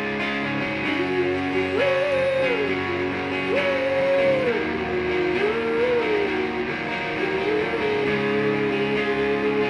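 Live rock song, instrumental break: strummed guitar chords, joined about a second in by a sustained melody line that slides and wavers between notes.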